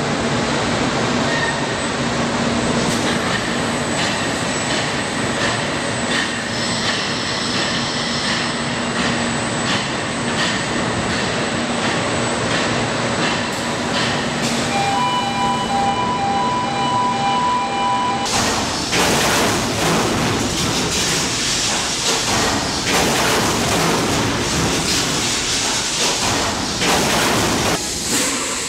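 Steady industrial machinery noise of a car-body press shop, with a pulsed electronic warning beep a little past halfway. From about two-thirds in the noise turns harsher, with frequent knocks and clatter.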